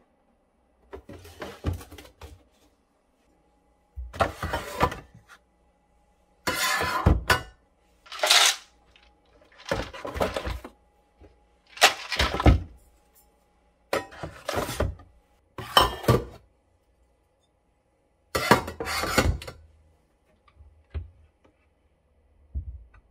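Plastic lids, bottles and containers clattering and knocking as they are handled and stood in a file-style organiser box in a kitchen cabinet, in about eight short bursts of handling noise. A cabinet door shuts with a short thud near the end.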